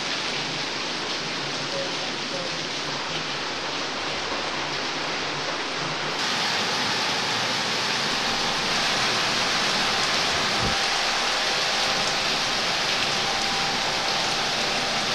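Torrential rain pouring down in a steady hiss, beating on roofs, balcony tiles and trees; it grows louder about six seconds in.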